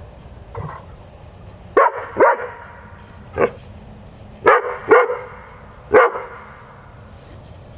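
Dog barking: six loud, sharp barks over about four seconds, some coming in quick pairs.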